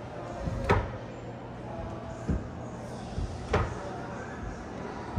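Four short, sharp knocks, one every second or two, over a steady low hum.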